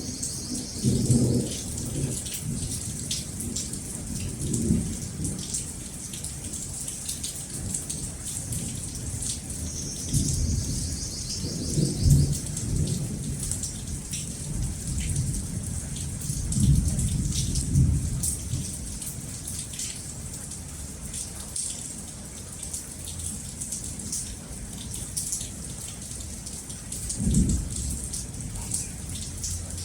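Steady rain hissing throughout, with about five low rolls of thunder that swell and fade, the strongest around twelve and seventeen seconds in.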